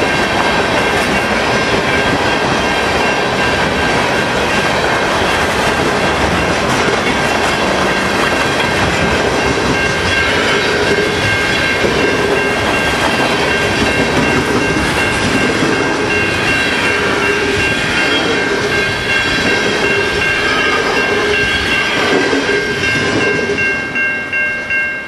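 Freight cars, mostly loaded tank cars, rolling past at track speed: wheels clacking over rail joints amid a dense rumble, with a steady high-pitched ringing throughout. The sound falls away in the last couple of seconds as the end of the train passes.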